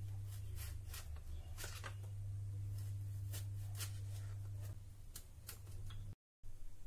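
Kitchen knife slicing long green brinjal (eggplant) into strips on a plastic cutting board: irregular sharp taps of the blade on the board, roughly two a second, over a low steady hum.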